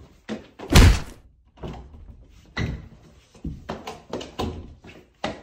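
A loud crash as a person runs into an interior door about a second in, followed by several shorter thumps and knocks.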